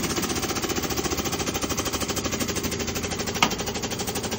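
Air-over-hydraulic jack's air-driven pump running with a rapid, even pulsing as it lifts under load. One sharp click comes about three and a half seconds in.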